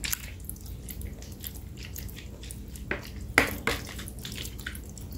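Fish sauce poured into a pot of fish, dripping and splashing lightly in small irregular drops, with a few sharper drips a little past halfway.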